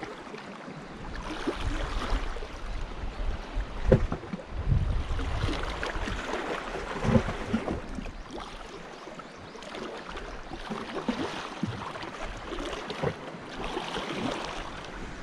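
Small sea waves lapping and splashing against shoreline rocks, with wind buffeting the microphone in irregular low rumbles.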